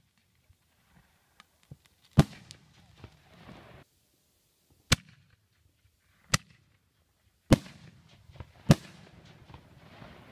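Aerial fireworks bursting overhead: five loud bangs spaced one to three seconds apart, each followed by a fading rumble, with fainter crackles in between.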